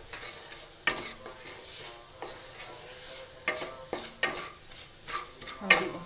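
Spatula stirring onion-and-spice masala frying in oil in a kadhai: a steady sizzle with spatula strokes scraping and knocking against the pan about every second, the loudest near the end.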